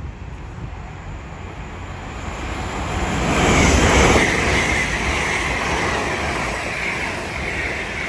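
LNER Azuma (Class 800) express train passing through the station at speed without stopping: a rush of noise builds to its loudest about three to four seconds in and stays loud as the carriages go by, with a steady high whine over it.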